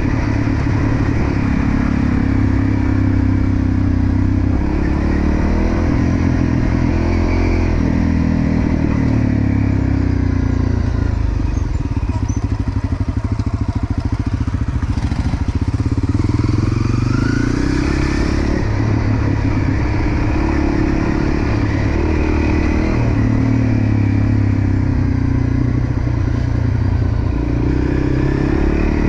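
Single-cylinder four-stroke Honda trail bike engine heard onboard, its pitch rising and falling repeatedly as the throttle opens and closes, with a longer rising rev about halfway through.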